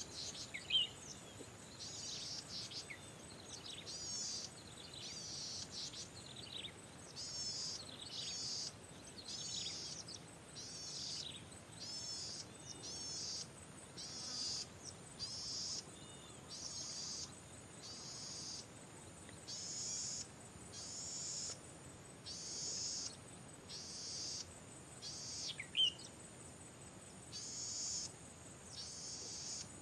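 Golden-headed cisticola singing: a steady series of short, buzzy, high notes about one a second, with a loud, sharp, falling note about a second in and again near the end.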